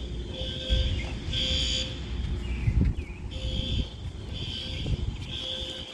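Building fire alarm sounding in the temporal-three pattern: three beeps about a second apart, a pause, then three more beeps. A steady low rumble runs underneath.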